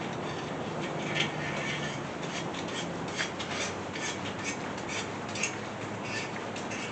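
Thread chaser being worked through the head bolt holes of a small-block Chevy 350 iron block, cleaning the threads. Irregular metal clicks and short scrapes of hand tools on the block, over a steady background hiss.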